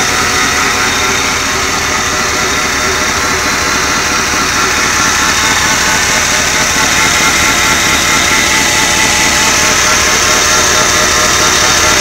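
Chevy C1500 pickup's V8 engine running steadily at idle, heard up close in the open engine bay.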